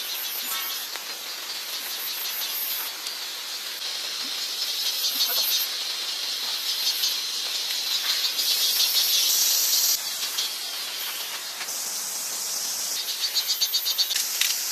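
A chorus of insects singing: a high, finely pulsing buzz that swells and fades in long stretches. It is loudest about eight to ten seconds in and again near the end.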